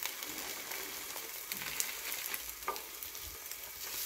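Egg-and-cheese rolled omelette sizzling steadily in oil in a rectangular omelette pan as it browns, with a few sharper crackles and ticks.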